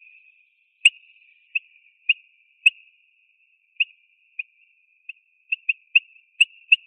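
Eurasian bullfinch calling: about a dozen short piping notes at one pitch, coming faster near the end, over a faint steady tone at the same pitch.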